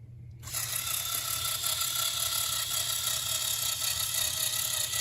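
A Lego XL motor driving a custom Lego Technic dump truck through its plastic gears: a steady high whir that starts about half a second in as the truck climbs the slope.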